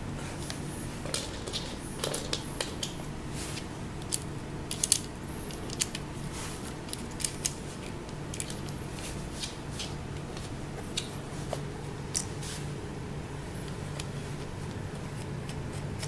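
Scattered small clicks and taps of hands handling metal washers and locking nuts, tightening them by hand onto the bolts of a wicker chair frame, over a steady low hum.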